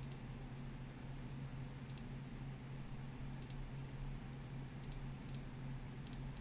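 Computer mouse clicks, about six of them a second or so apart, some in quick pairs, over a steady low hum.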